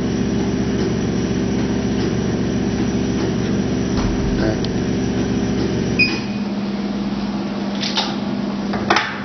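LS-650 lipo laser cavitation slimming machine running with a steady hum of several tones while its handpiece is in use. About six seconds in it gives a short high beep and the hum thins to a single lower tone. A couple of light clicks come near the end.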